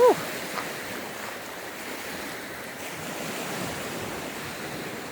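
Lake waves breaking on a stony shore, a steady rushing wash, with wind buffeting the microphone. A short voiced exhale sounds right at the start.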